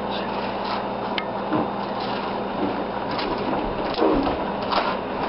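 Table knife scraping and spreading butter across English muffin halves in short scratchy strokes, over a steady background hum and hiss.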